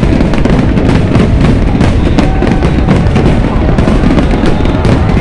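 Fireworks display going off in a dense, continuous volley of bangs and crackles over a steady low rumble, with music playing along.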